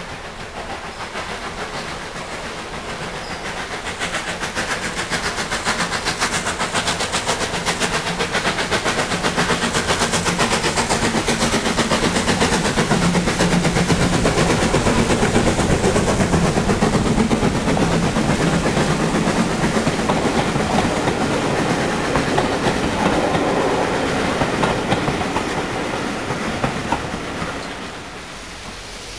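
Steam tank locomotive under steam, hauling coaches and a goods van past close by, with a rapid steady beat and wheels clattering over the rails. The sound builds, is loudest about halfway through, fades as the train draws away, and drops off sharply near the end.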